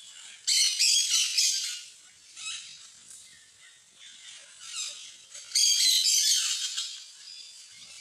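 Parrot calls: bursts of high, scratchy chattering squawks. Long loud bursts come about half a second in and again from about five and a half seconds, with a few short calls between.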